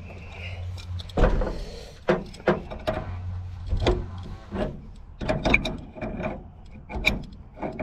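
Wrench working on the metal fittings of a double check backflow preventer being assembled: irregular metallic clicks and clanks, a few ringing briefly.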